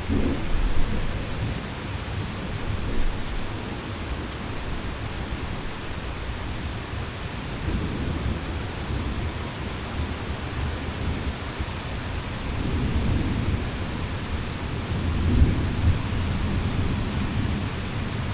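Heavy rain falling steadily, with low rolling thunder: a rumble right at the start and a longer roll swelling past the middle and fading near the end.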